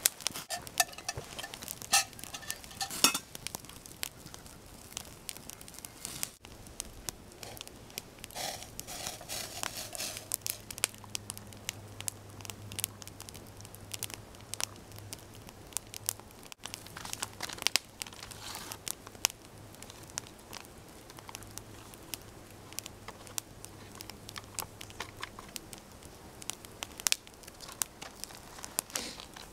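Wood campfire crackling, with frequent irregular sharp pops and snaps.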